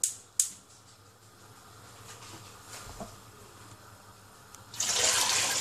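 Gas stove igniter clicking once near the start as the burner is lit, then a faint steady hiss. About five seconds in, a loud rushing noise lasting under a second.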